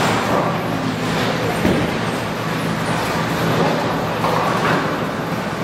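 Steady rumble of a busy bowling alley: bowling balls rolling down the wooden lanes, with a constant low hum and a faint knock about a second and a half in.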